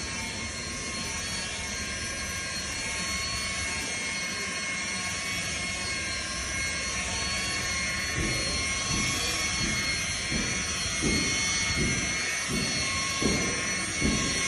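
Electric rotary polisher with a foam pad running at speed, buffing car paint: a steady high motor whine. From about eight seconds in, a lower sound surges unevenly about twice a second as the pad works against the panel.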